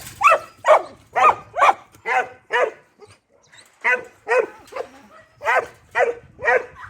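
Dog barking repeatedly: about a dozen short barks in three quick runs, with a pause of about a second near the middle.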